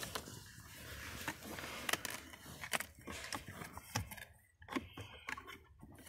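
Chery Tiggo 4 cabin heater blower motor and its plastic housing being handled and fitted back in under the dashboard: a string of sharp plastic clicks and knocks with scraping.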